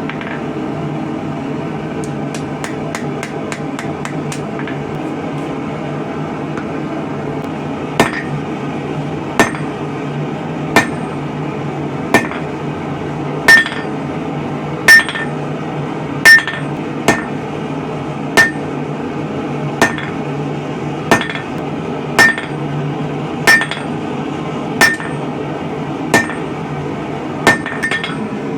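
Blacksmith's hammer striking hot steel on an anvil: after a few seconds of fast light taps, slow single blows about every second and a half begin about a third of the way in, each ringing out from the anvil. A steady low hum runs underneath.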